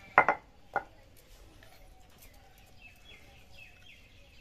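Two hard knocks, the second softer about half a second after the first, as the stone pestle and metal tumbler come down on a stone grinding slab. Faint bird chirps follow in the second half.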